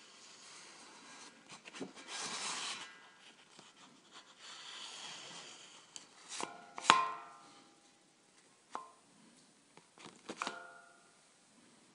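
Metal air-gun target holder being handled: rustling and scraping, then four sharp metallic clanks with a brief ring in the second half, the loudest about seven seconds in.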